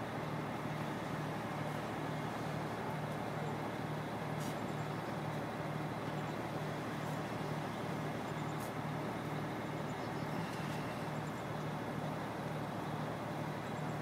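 Crane engine running steadily under a lift, with a regular low throb of about two pulses a second.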